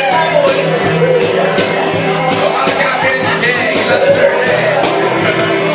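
A sertanejo-style song with a sung vocal over a regular beat.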